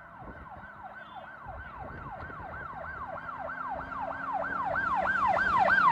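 Emergency vehicle siren in a fast yelp, sweeping up and down about three times a second and growing steadily louder.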